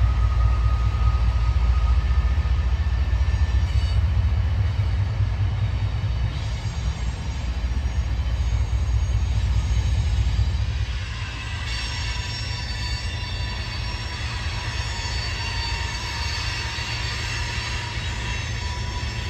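Freight train cars rolling past with a steady low rumble. About eleven seconds in, the rumble eases and high-pitched wheel squeal sets in and keeps on.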